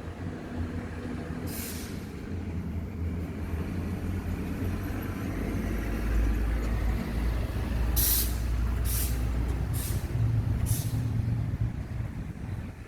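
Russell's viper hissing in five short bursts, one early and four in quick succession near the middle, over a low steady rumble.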